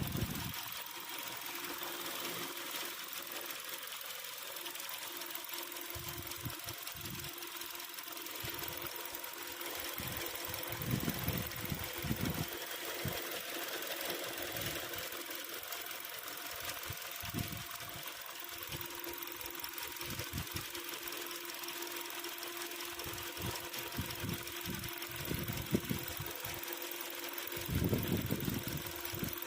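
Hyundai Sonata DN8's 2.5-litre four-cylinder engine running with a fast, steady rattling knock, the engine noise the owner is chasing. Occasional low bumps come and go over it.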